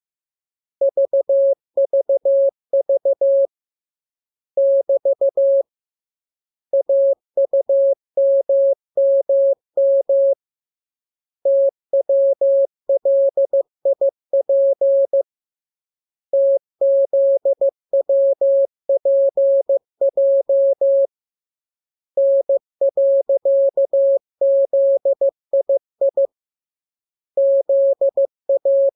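Morse code sent as a single mid-pitched beep tone, keyed into short dots and longer dashes. The characters come in groups a few seconds long, separated by pauses of about a second.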